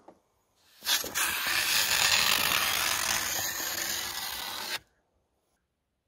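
A steady rasping scrape that starts about a second in, holds for about four seconds and cuts off suddenly: snow and ice being scraped from the observatory wall with a hand tool.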